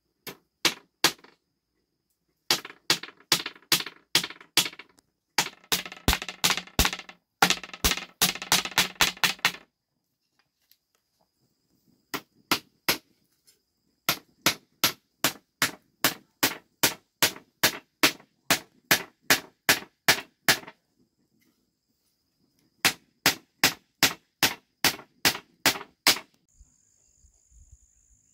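Hammer driving nails into wooden boards: sharp blows in quick runs of about three a second, with short pauses between runs. The hammering stops near the end.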